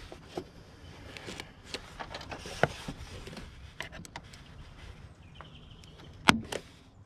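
Scattered metallic clicks and taps from a flat screwdriver working a spring hose clamp onto the top radiator hose, with the sharpest click about six seconds in.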